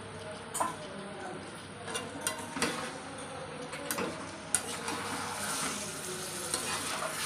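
A spatula stirs marinated chicken pieces through sizzling spiced masala in a metal pot, scraping and knocking against the pot a few times. The frying sizzle grows louder from about halfway through.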